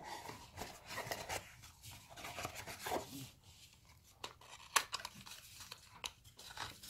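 Hands handling cardboard packaging: a cardboard insert slid out of a gift box, then a small cardboard box worked open, with scraping and rustling and a few sharp taps and clicks, the loudest about two-thirds of the way through.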